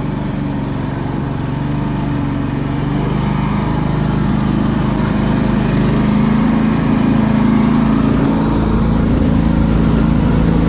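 Off-road vehicle's engine running steadily under way on a rutted dirt track, its pitch rising a little about three seconds in.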